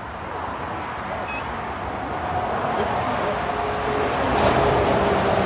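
ISEKI HJ6135 combine harvester's diesel engine running and getting steadily louder as it is throttled up, with a steady whine from the machine coming in about halfway through. A short beep sounds about a second in.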